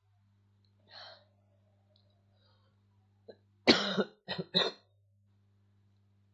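A man coughing: a breath about a second in, then three coughs close together near the middle, the first the loudest. The cough of someone who is unwell.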